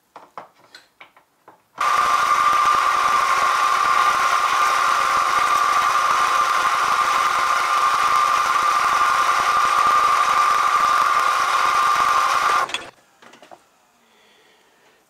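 Benchtop milling machine's motor running at one steady speed with a constant whine, switching on about two seconds in and cutting off abruptly about eleven seconds later.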